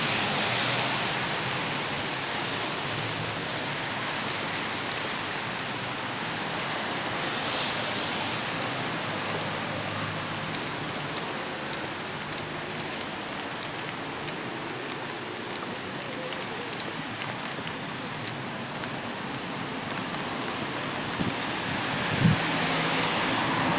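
Steady hiss of heavy wet snow falling on the street and parked cars, with faint scattered ticks of flakes striking. A few dull thumps near the end.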